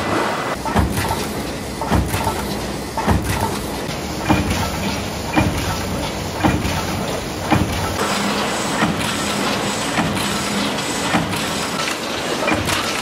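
Tinplate cut-to-length shearing line running: a steady machine din with a sharp clunk about once a second as the shear cuts the sheet, and lighter clicks in between.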